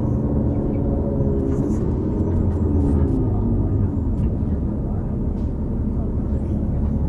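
Cabin sound of a 2018 New Flyer XD40 transit bus under way: the Cummins L9 diesel and Allison B3400xFE transmission drone steadily, with several tones that slide down in pitch about two to four seconds in as the bus slows. The odd drivetrain sound is, in the uploader's view, from the transmission bearings.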